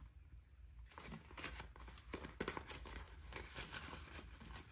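Faint rustling and crinkling of paper dollar bills and a clear plastic binder pouch as cash is slid into the pouch, in a string of short, irregular rustles.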